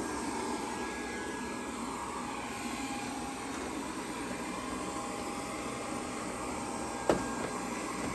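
GleeU GRS1 robot vacuum running steadily, a whirring hiss with a faint thin whine. A single sharp knock about seven seconds in.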